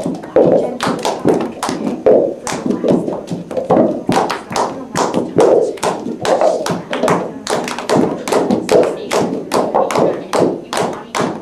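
Plastic cups tapped and thumped on a carpeted floor, mixed with hand claps, in a steady quick rhythm: several players keeping the beat of a cup-passing rhythm game together.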